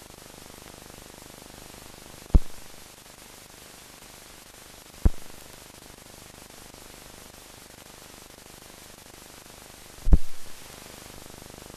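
Steady hiss of a silent film's soundtrack, broken by three sudden low thumps, at about two, five and ten seconds in, the last the loudest.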